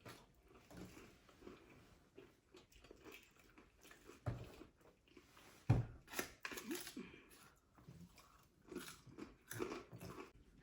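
Chewing and crunching of KFC fried food, with many small crackles and wet mouth sounds. Two louder dull thumps come about four and six seconds in.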